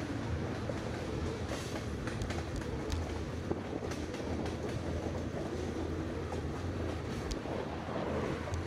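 Road noise from a road bike riding on asphalt, picked up through a handlebar-mounted camera: a steady low rumble of tyre and frame vibration with wind on the microphone and scattered small rattles and clicks.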